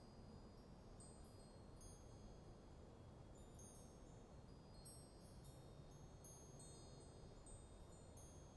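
Faint wind chimes tinkling at irregular moments, many short high notes overlapping, over a low steady rush of light breeze.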